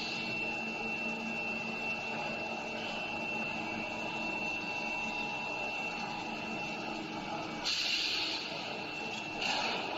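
Metalworking machine running steadily, with a constant high-pitched whine over a rough grinding-like noise, interrupted by two short bursts of hiss near the end.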